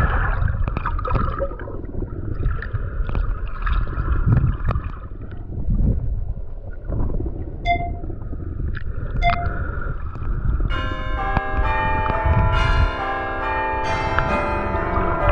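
A low, noisy background with two short high beeps about 8 and 9 seconds in. From about 11 seconds in, many bell-like tones ring together, like chimes.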